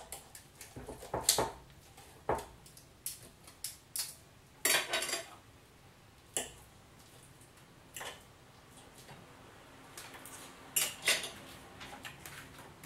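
Cutlery clinking and scraping against a plate as a piece of pork is cut and picked up, in scattered irregular taps with the busiest bursts about five seconds and eleven seconds in.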